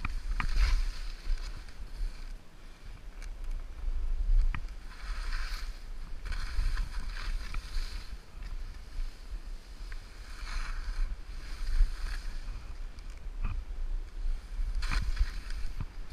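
Atomic skis hissing through deep powder snow, a swoosh with each turn every few seconds, over a steady low rumble and a few sharp clicks.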